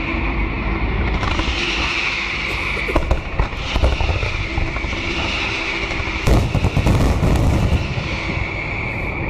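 Fireworks salute going off close by: booms and crackling over a low rumble, with a dense cluster of bangs about three seconds in and a louder run of them just past six seconds. A car alarm wails alongside, a high wavering tone.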